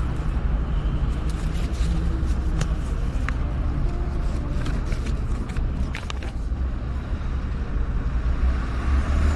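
A road vehicle running: a steady low rumble with a few faint clicks.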